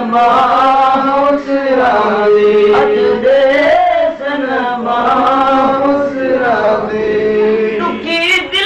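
Male voices chanting a Sufi devotional kalam in Saraiki/Punjabi, in long, wavering held notes with short breaks between phrases.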